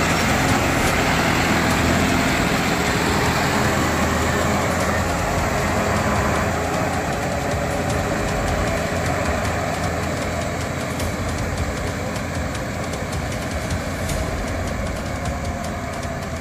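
John Deere 5305 tractor's three-cylinder diesel engine running steadily under load, driving a rotavator through wet paddy mud. It grows gradually fainter through the second half as the tractor moves away.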